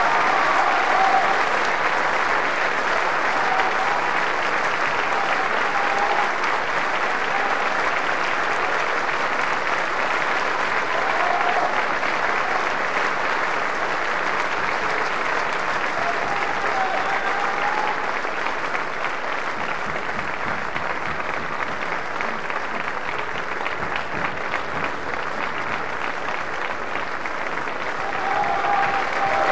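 Opera audience applauding steadily, with scattered shouts from the crowd over the clapping; it grows a little louder again near the end.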